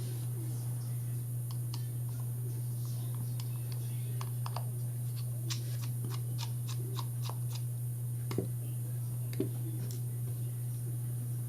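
Light plastic clicks and taps of a GoPro Hero 5 Black action camera being handled as it is taken apart, with two slightly louder knocks near the end, over a steady low hum.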